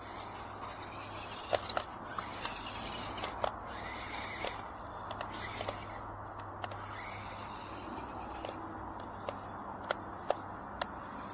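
Scattered sharp clicks and taps, about a dozen at irregular intervals, over a steady hiss and low hum.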